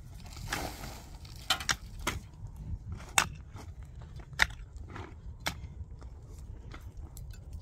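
A mattock digging into dry, stony soil: sharp strikes about once a second, with clods and stones scraping loose between blows.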